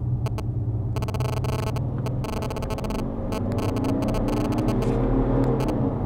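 Mercedes X-Class X250d's four-cylinder diesel, overlaid by its Active Sound exhaust speakers playing a simulated V8 note, heard from inside the cabin as the pickup accelerates in second gear. A steady low drone is joined from about three seconds in by a note whose pitch climbs with engine speed.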